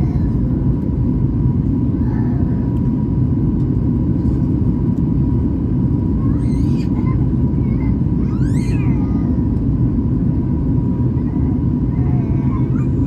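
Steady low rumble of a Boeing 737 MAX 8 in flight, heard inside the passenger cabin, with a faint steady high hum. Twice near the middle a short, high, rising-and-falling squeal cuts through.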